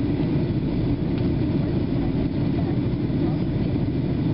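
Steady, deep cabin noise of a Boeing 757-224 in its climb after takeoff: the Rolls-Royce RB211 engines and the airflow over the fuselage heard from a window seat inside the cabin.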